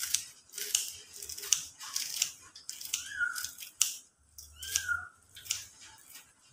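Kitchen scissors snipping leafy herbs (spring onion and soup celery) into a pot of soup: a dozen or so quick, irregular crisp snips.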